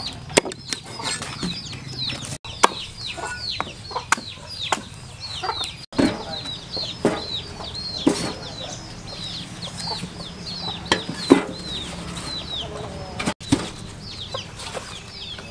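Small birds chirping rapidly and without a break, each chirp a short high note falling in pitch, over scattered sharp knocks from corn ears being cut on a wooden chopping board and set into a metal pot.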